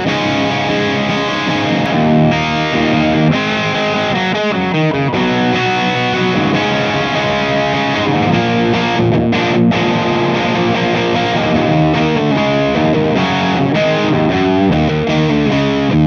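Distorted electric guitar played through small EL84 valve amp heads, the Orange OR15 and the Mesa/Boogie Rectoverb 25 in turn, a continuous riff of overdriven chords and notes.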